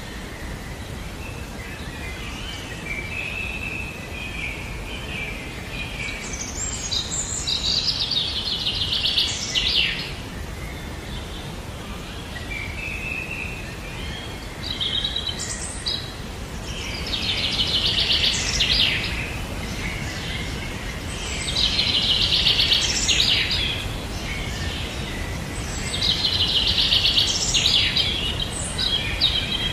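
A songbird repeating a high, buzzy trilled song phrase four times, every five or six seconds, over a steady low background rumble of outdoor noise.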